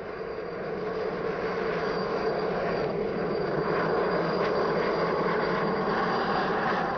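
Alouette II helicopter's turbine and rotor running as it lifts off: a steady high turbine whine over the rotor noise, growing louder over the first couple of seconds and then holding steady.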